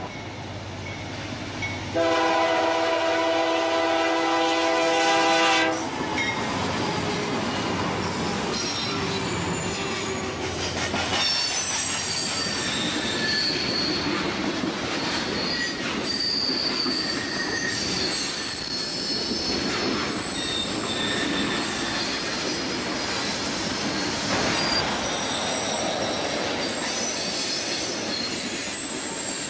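Diesel freight train's horn sounds one long blast of about four seconds, starting about two seconds in. Then the train rolls past, its long string of freight cars making a steady rumble, with high wheel squeals coming and going on the curve.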